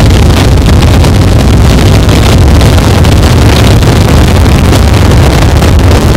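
Harsh noise wall: a dense, unchanging wall of distorted electronic noise, very loud, with heavy rumble in the bass and crackling crunch on top.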